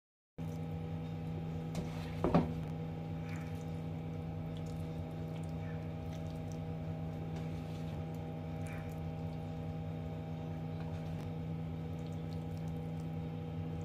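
Steady low hum of several constant tones, with a metal spoon clanking sharply once against the pan about two seconds in and a few faint taps and scrapes as the curry is spooned onto a serving plate.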